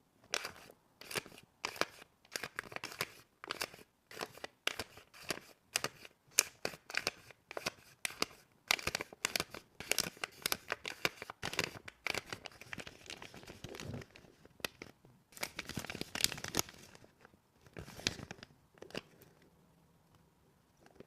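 Sticker labels and plastic packaging being handled by hand: a dense run of quick tearing, peeling and crinkling strokes that stops a couple of seconds before the end.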